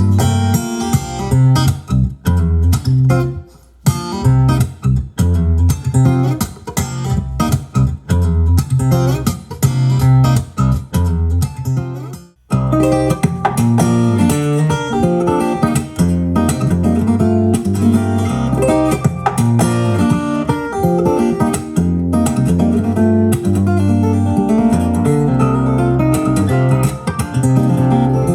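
Instrumental passage of a vocal jazz recording, plucked acoustic guitar over a bass line, played back through a Bang & Olufsen portable Bluetooth speaker and picked up by a microphone.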